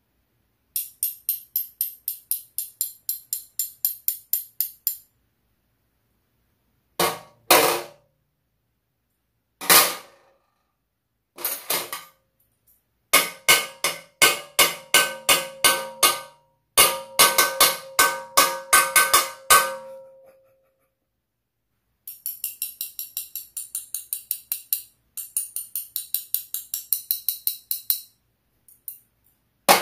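Stainless steel chopsticks and spoon tapped and drummed on an aluminium tray table, clinking in rhythm. Quick runs of light taps open and close the passage, with a few single strikes and a stretch of ringing blows in the middle.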